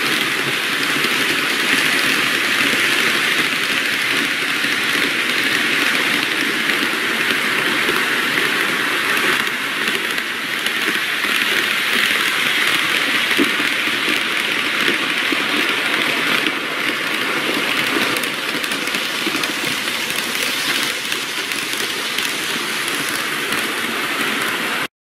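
N-gauge model trains running on the layout's track: a steady, even rattle of the cars' wheels and motor on the rails, easing slightly about ten seconds in.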